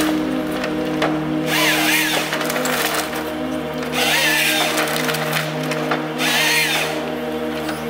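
Ponsse Ergo harvester processing a log: the diesel engine and hydraulics run steadily while the harvester head's chain saw cuts through the wood three times, about every two to two and a half seconds, each cut a whine that rises and falls.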